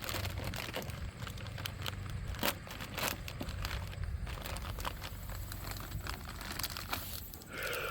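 Plastic packaging crinkling with many scattered light clicks as a new suspension part and its small hardware are handled.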